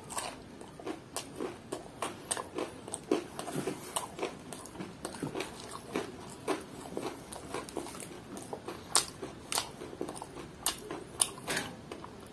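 Chewing a mouthful of crispy fried chicken, the breaded coating giving a run of irregular crunches.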